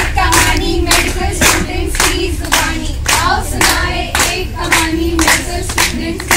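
A group clapping hands in a steady rhythm, about two claps a second, with voices singing along.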